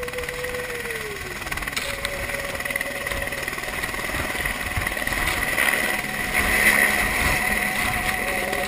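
Single-rotor turbine helicopter lifting off and climbing away, its engine and rotor noise growing louder to a peak about seven seconds in.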